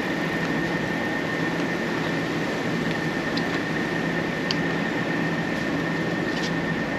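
Steady machine hum and hiss with a steady high-pitched whine over it, and a few faint light clicks.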